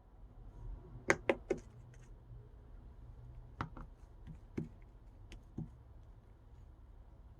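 Sharp taps of a hard pen tip on a glass screen as someone writes: a quick run of three clicks about a second in, then scattered single taps.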